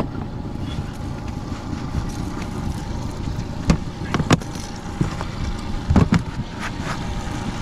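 Boat's outboard motor running steadily at trolling speed, with a few sharp knocks in the second half.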